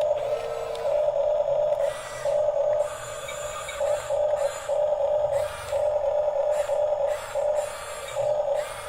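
Huina 1554 RC bulldozer's small electric motors and gearboxes whining in short stop-start runs, about ten in a row, each lasting half a second to a second.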